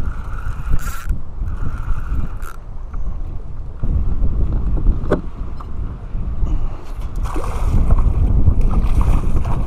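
Wind buffeting the microphone, then water splashing beside the kayak in the last few seconds as a hooked smallmouth bass thrashes at the surface by the landing net.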